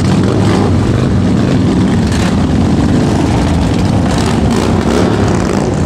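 A loud, steady engine rumble.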